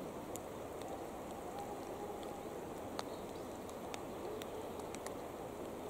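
Steady rush of river water under rainfall, with scattered sharp ticks of raindrops striking close to the microphone, one louder than the rest about three seconds in.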